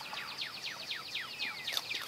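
A small bird singing a rapid string of short, high, downward-slurred whistled notes, about seven a second, with one longer falling whistle midway, over a steady high insect drone.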